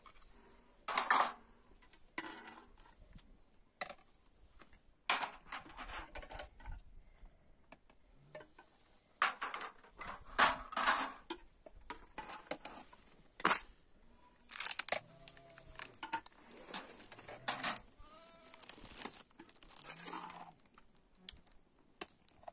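Intermittent cooking handling noises in short separate bursts: crinkling, tearing and light clatter of pots and utensils. Two brief pitched calls sound faintly in the background a little past the middle.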